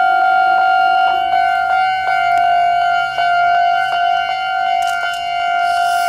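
Japanese railway level-crossing warning bell ringing: a loud electronic ringing with a steady repeating beat about twice a second, signalling that a train is approaching.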